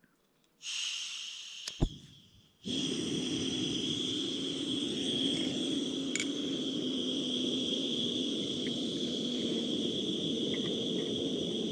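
Small camp gas stove being lit: a brief hiss of gas, a sharp igniter click about two seconds in, then the burner catching and running steadily under a pot of water being brought to the boil.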